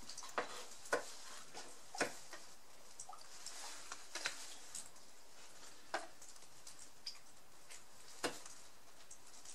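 Hand spatula spreading body filler over a car door's metal edge: light scrapes with scattered sharp clicks and taps, about one every second or two.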